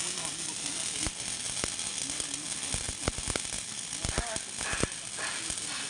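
Electric arc welding on steel: a steady sizzling hiss with frequent sharp pops and crackles, which come more often in the second half.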